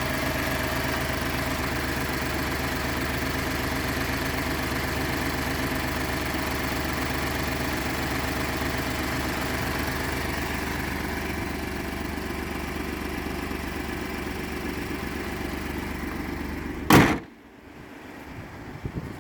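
2012 Ford F-150's 3.5-litre EcoBoost twin-turbo V6 idling steadily after a cold start, the idle the owner calls rough. Near the end there is one loud thump, after which the engine is heard much more faintly.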